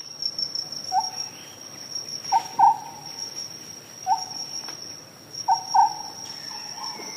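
Nature ambience: a steady high-pitched insect trill, with short lower calls repeating six times, twice in quick pairs.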